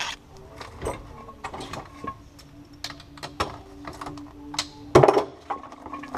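Hand tools and metal parts clicking and clinking at irregular intervals as a socket ratchet and loose parts are handled, with a heavier knock about five seconds in. A faint steady hum runs underneath.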